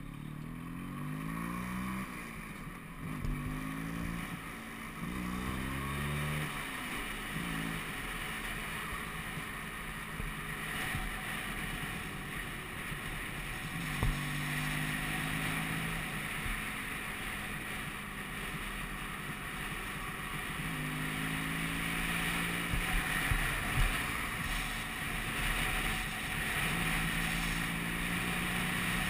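Vespa PX200 scooter's two-stroke single-cylinder engine running on a winding descent, its pitch rising and falling several times in the first seven seconds or so, then holding steadier. Wind noise rushes over the microphone, with a sharp knock about halfway through.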